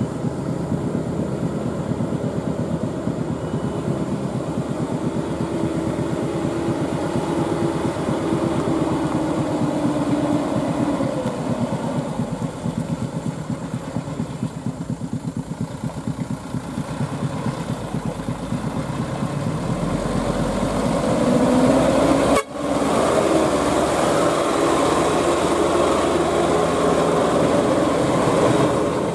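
Diesel engine of a loaded Mitsubishi Canter truck working hard along a rough dirt road, its pitch rising and falling with the throttle. A brief dropout breaks the sound about three-quarters of the way through.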